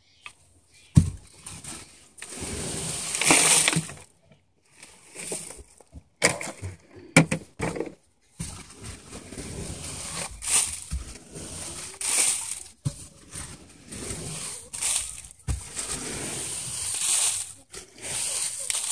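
Dry coop bedding of wood shavings, straw and shredded paper rustling and crunching close to the microphone in irregular bursts, with a few sharp clicks.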